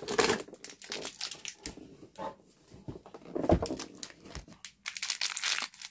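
Cardboard and plastic toy packaging being handled. A perforated cardboard door is opened and a small mystery figure is pulled out. It makes irregular small scrapes, clicks and crinkles, with a louder scrape about three and a half seconds in.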